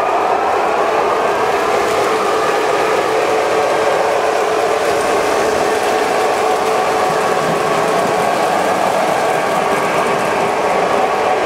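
Several three-rail O-gauge model trains running at once: a steady rumble and rattle of wheels on the track, with electric motor whine that drifts slowly in pitch.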